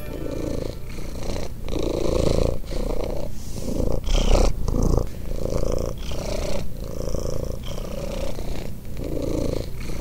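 Domestic cat purring close to the microphone: a steady purr that swells and breaks with each breath, about once a second.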